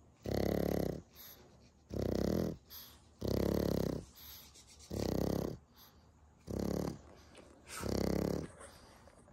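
A sleeping dog snoring: six snores in a steady rhythm, about one every second and a half.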